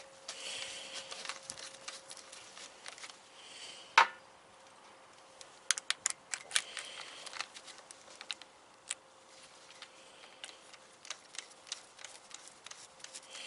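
Scattered small clicks and knocks of tools and parts being handled, with one sharp knock about four seconds in and a quick run of clicks a couple of seconds later, over a faint steady hum.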